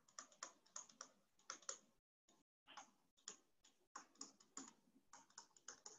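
Faint, irregular tapping of a stylus pen on a writing surface as handwriting is drawn, about fifteen light clicks with a short pause near the middle.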